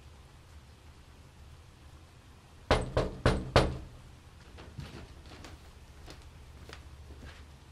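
A fist knocking four times on a glass-paned door, the knocks about a third of a second apart, followed by a few faint light ticks.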